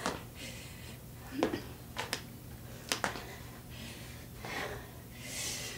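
Feet landing with a few short thuds on a wooden floor during side-to-side skater hops, about a second apart, with heavy breathing in between.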